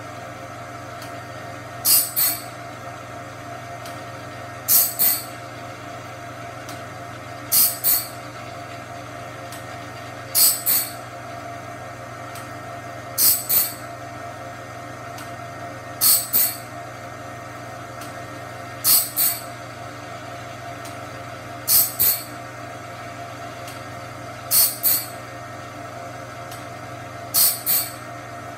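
Cat's Claw band-blade sharpener running on a sawmill band blade: a steady motor hum, broken about every three seconds by a pair of short, high-pitched grinding hisses as the wheel grinds a tooth and the blade is indexed to the next.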